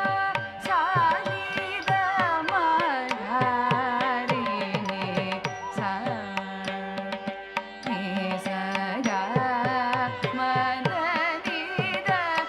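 Carnatic music accompanying a Bharatanatyam dance: an ornamented, sliding vocal melody over a steady drone, with frequent hand-drum strokes.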